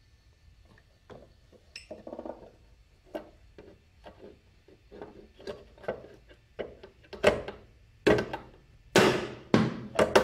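Hard plastic knocks and clacks as a black plastic cover is pushed and tapped into place over a Yamaha Xeon scooter's CVT pulley. The knocks come irregularly and grow louder from about seven seconds in.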